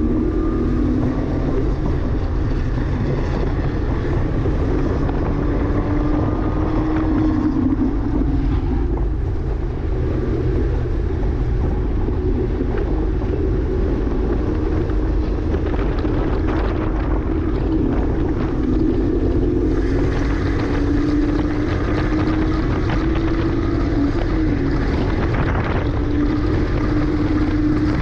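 2009 Porsche Cayman S flat-six engine under hard driving, its pitch climbing and then dropping several times as the car accelerates and shifts or slows, over steady wind and road noise.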